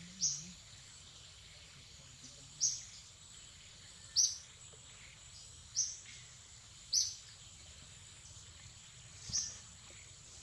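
A bird repeats a short, high chirp six times, one every one to two seconds, over a steady high-pitched insect drone.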